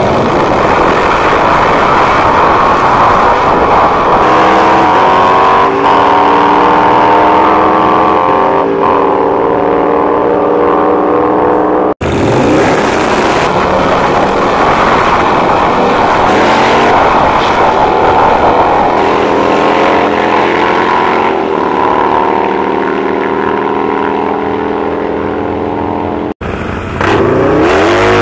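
Pairs of drag-racing motorcycles launching from the start line and accelerating hard away, engine pitch climbing and dropping back with each gear change. The sound cuts out for an instant about twelve seconds in and again near the end, and a fresh launch starts each time.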